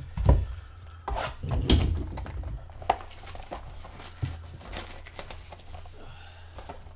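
Knocks, clicks and crinkling from a Panini Prizm basketball blaster box being handled and unwrapped. The sharpest knocks come in the first two seconds, then softer clicks and rustling follow.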